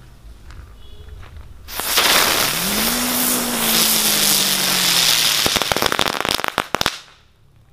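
A 'raja kera' firecracker spraying sparks on asphalt: a loud fizzing hiss for about four seconds, with a low whine that rises and then slowly sinks. It ends in a quick run of sharp crackles and cuts off without a big bang, since the firecracker does not explode.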